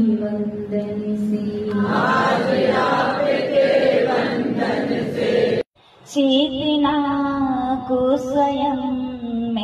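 A woman's voice chanting a devotional hymn into a microphone in long held notes. It cuts off abruptly a little past halfway, then resumes after about half a second.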